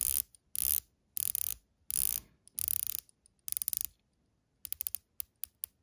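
The ratcheting dive bezel of a Christopher Ward C60 Sapphire watch turned by fingers in short strokes: about six quick runs of clicks, then a few single clicks near the end. The bezel is taut with little back play but turns with light resistance for a dive watch.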